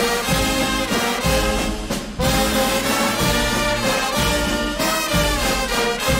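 Brass band music: held brass notes and chords over a bass line.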